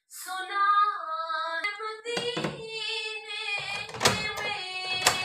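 Background music with a woman singing a gliding melody. A few sharp knocks sound over it, one about four seconds in as a metal door handle is pressed to open a wooden door.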